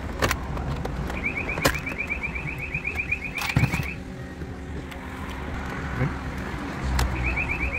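A rapid, high electronic beeping sounds in two runs of a few seconds each. Between them are sharp clicks and knocks of the car's plastic console trim panels being pried loose.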